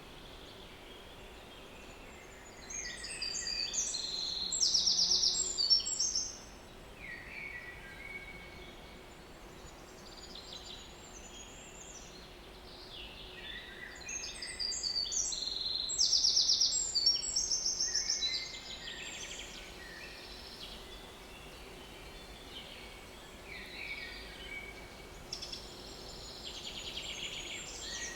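Small woodland songbirds singing. Two loud song phrases come about three seconds in and again about fourteen seconds in, each a few seconds long and ending in a fast trill, with quieter songs from other birds in between.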